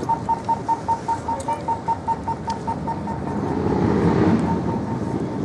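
Pedestrian crossing signal beeping rapidly at green, about five short high-pitched beeps a second, strong for the first three seconds and then fainter. Around four seconds in, a passing vehicle swells up over it.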